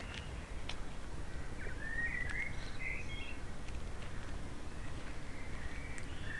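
Outdoor ambience: small birds chirping in short calls over a steady low rumble, with a few faint clicks.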